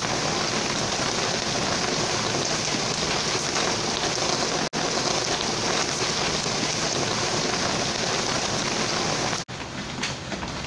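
Heavy rain falling, a loud steady hiss, broken by a brief dropout about halfway. Near the end it cuts to softer rain with scattered light taps.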